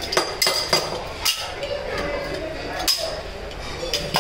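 Metal spatulas clinking and tapping against a steel ice-cream cold plate and against each other as ice cream is chopped and worked on the plate. The strikes come irregularly, several close together near the start and a few spaced out later.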